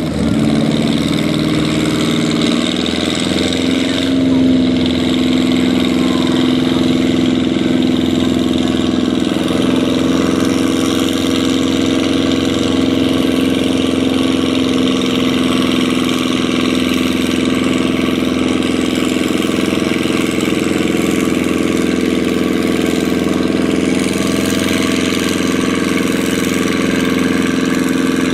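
Farm tractor engine running at high, steady revs, its pitch climbing a little in the first second or two and then holding even.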